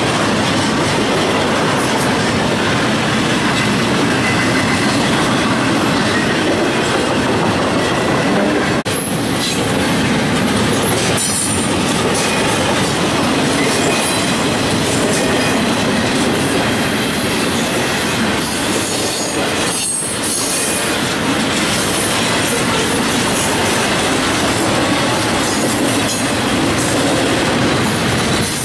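Double-stack intermodal freight train rolling past: steady noise of steel wheels on rail and passing well cars, with a few brief high squeals from the wheels.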